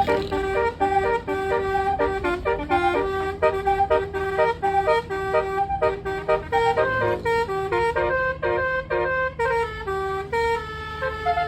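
Basuri (telolet) musical car horn playing a quick tune, note after note in short blasts, over a steady low hum.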